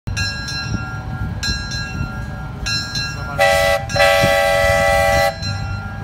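Ride-on farm train's locomotive running with a low rumble while its bell rings about once a second. About halfway through, its horn sounds a short blast and then a longer blast of several notes together.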